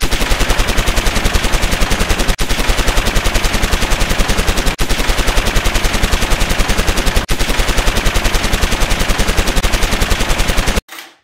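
Machine-gun fire sound effect: an even, rapid stream of shots, about eight a second, repeating as a loop and cutting off abruptly near the end.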